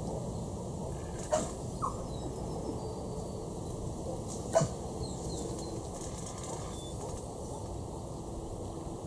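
Steady wind noise on the microphone, with three brief sharp sounds: two close together about a second and a half in and another about halfway through.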